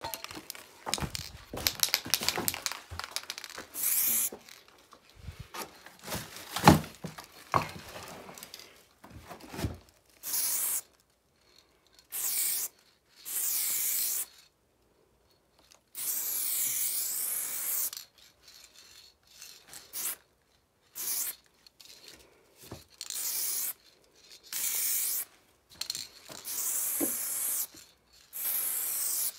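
Aerosol spray paint can hissing in short bursts, about nine of them lasting from half a second to two seconds, as black lines are sprayed onto a wall. Before that, in the first third, come irregular knocks, scuffs and rustling.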